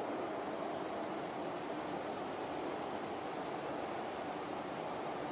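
Steady outdoor background rumble with three short, high chirps from small birds: about a second in, near the middle, and near the end, the last a slightly longer falling whistle.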